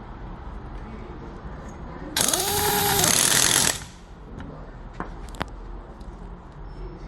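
A torque-adjustable capping machine's spindle spins a cap onto a small bottle. It makes a loud mechanical whir for about a second and a half, rising and then falling in pitch, and stops abruptly. Two sharp clicks follow about a second later.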